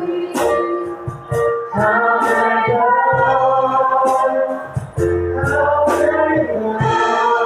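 Worship group of female and male voices singing a hymn together through microphones, accompanied by a Roland FP-4 digital piano.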